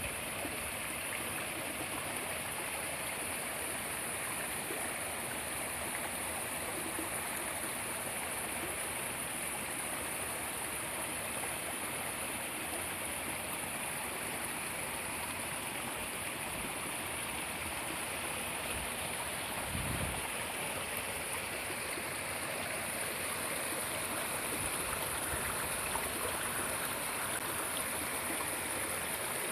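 Mountain stream water rushing steadily. There is a brief low bump about twenty seconds in.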